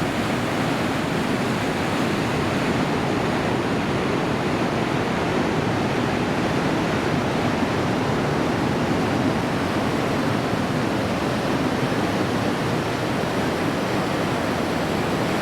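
Steady, even rush of ocean surf breaking, with no distinct wave crashes standing out.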